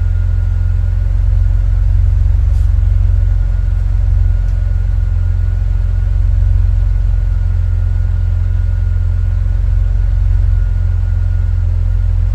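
Opel Vectra C's 2.8-litre turbocharged V6 (Z28NET) on its stock exhaust, idling steadily in the warm-up after a cold start: a deep, even rumble with a faint steady high whine above it.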